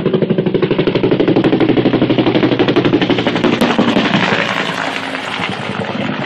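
Low-flying two-bladed Army helicopter passing overhead, its rotor blades beating in a loud, rapid, even chop of about ten beats a second. The chop eases somewhat in the last second or two.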